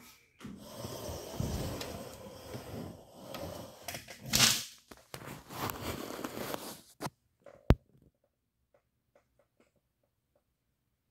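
Handling noise: irregular rubbing, rustling and knocks as a hand moves over the receiver's case and the camera is carried around it, with one sharp click a little under eight seconds in, followed by a few faint ticks.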